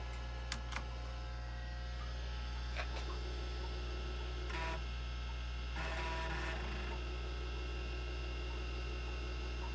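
IBM AT computer running with its MiniScribe 6053 hard drive spinning: a steady hum. Two sharp key clicks from the IBM keyboard come within the first second, and two short buzzing sounds come around the middle.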